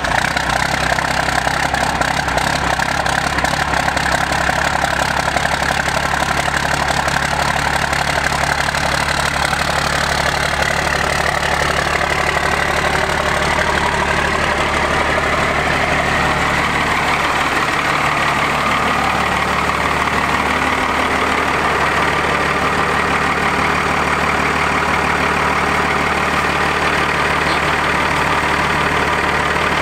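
First-generation Dodge Ram's 12-valve Cummins 5.9 L inline-six diesel idling steadily, cold, just after starting from sitting for several days.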